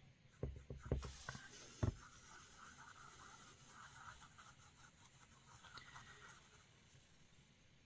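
Faint scratching of a brush working mica powder into a silicone mould, after a few soft knocks near the start.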